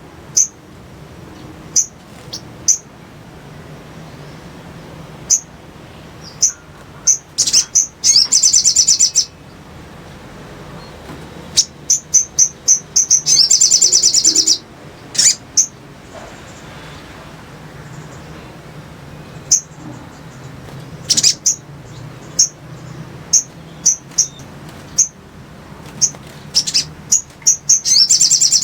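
Sogon (sogok ontong) bird calling: sharp, high single chirps scattered throughout, broken by three fast rattling trills of about a second each, the last one near the end.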